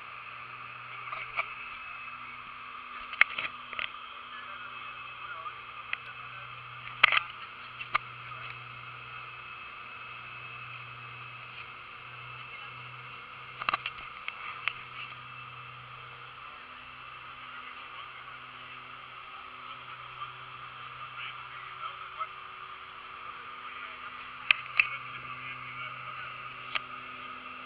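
Steady drone of a small propeller plane's engine heard from inside the cabin in flight, with a few sharp clicks or knocks now and then.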